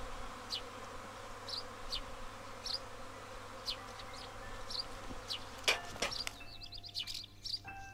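Honeybees buzzing in a steady hum around their hives, with a bird's short high chirps about once a second. About six and a half seconds in, light chiming music like a glockenspiel starts.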